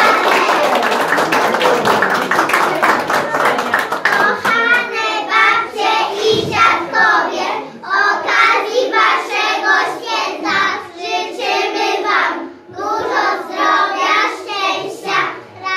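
Music with clapping that stops about four seconds in, followed by a group of young children singing together in short phrases.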